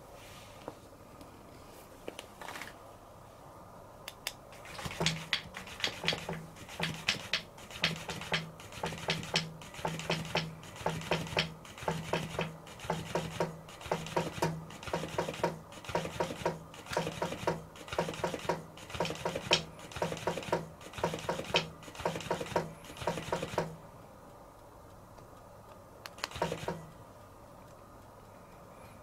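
Electric flopping-fish cat toy running: its small motor hums in short bursts about one and a half times a second as the fish flaps and rubs against a towel, for nearly twenty seconds. One more short burst comes near the end.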